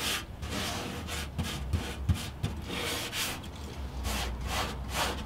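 A gloved hand rubs wet Corroseal rust converter back and forth over a rusty steel car floor pan, in a steady run of rubbing strokes, about two or three a second.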